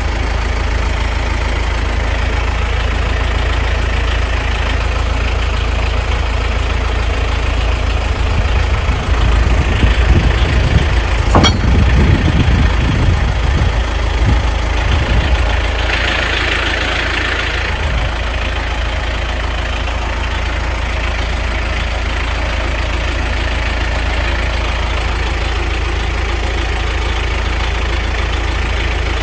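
Caterpillar D6B bulldozer's diesel engine running steadily. It gets louder for a few seconds about ten seconds in, with a sharp click near the middle of that stretch, and there is a short hiss a few seconds later.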